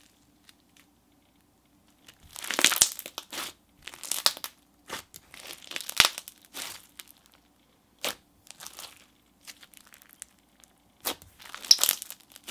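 Hands squishing and pulling apart a thick, crunchy floam slime packed with small and large foam beads: irregular bursts of crunching and crackling, with sharp bubble pops in between.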